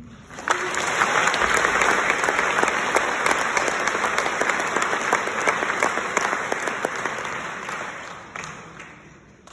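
Audience applauding, a dense patter of many hands clapping that starts about half a second in and dies away near the end.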